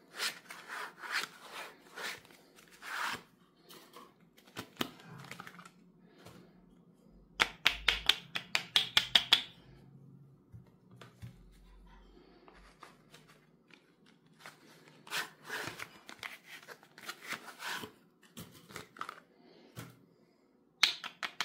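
Bars of soap and their cardboard box being handled: scraping and rubbing of soap against cardboard and against the hands, with a quick run of sharp taps about eight seconds in.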